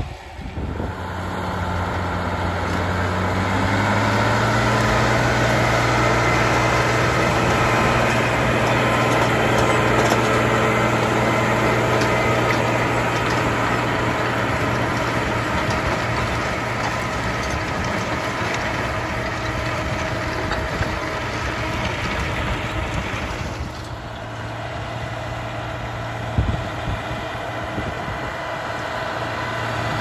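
New Holland 7840 tractor's engine running steadily under load as it pulls a power harrow and combi seed drill. The engine note rises over the first few seconds, then holds, with a single knock near the end.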